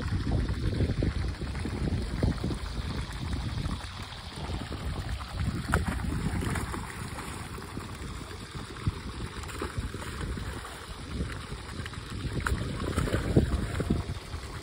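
Live fish splashing in the shallows as they are tipped out of plastic crates into a pond, in irregular bursts, over wind buffeting the microphone.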